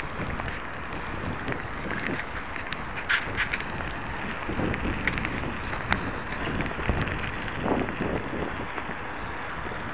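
Wind rushing over a small action camera's microphone while riding a mountain bike, with scattered light clicks and rattles throughout.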